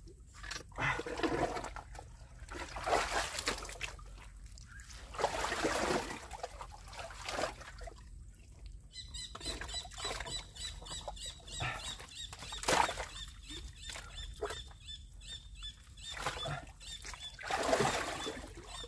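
Wet mud squelching and sloshing in irregular bursts as a hand and arm dig deep into a flooded mantis shrimp burrow.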